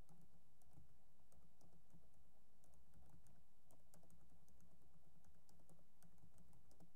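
Computer keyboard being typed on: faint, irregular keystroke clicks, a few per second, over a low steady hum.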